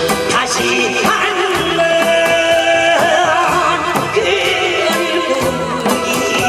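A singer performing an old-style Korean popular song into a microphone through a PA, the voice wavering with vibrato, over an electronic keyboard accompaniment and a steady drum beat.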